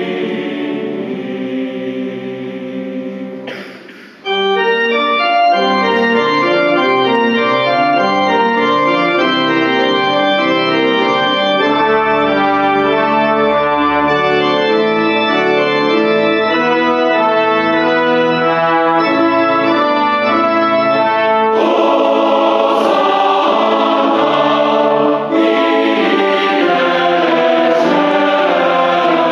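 Mixed choir singing with pipe organ in a reverberant church: the voices die away about four seconds in, the organ then plays a passage of sustained, changing chords, and the choir comes back in with it at about 22 seconds.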